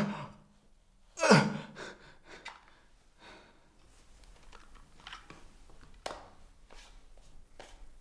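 A man's short, loud sigh about a second in, then faint clicks and a small knock of objects being handled on a desk.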